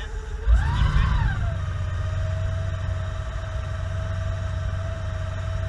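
Turbocharged V8 ski boat engine running slowly with a low rumble; about half a second in the throttle is blipped and the revs rise and fall back within a second, then it settles to a steady note with a high whine over the rumble.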